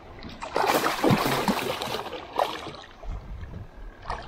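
A hooked snook thrashing and splashing at the water's surface beside the boat, loudest for a second or two near the start, with a couple of short sharp splashes later.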